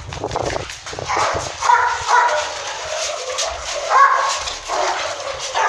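Dogs barking and yelping in a run of short, sharp calls. The loudest come about two seconds and four seconds in.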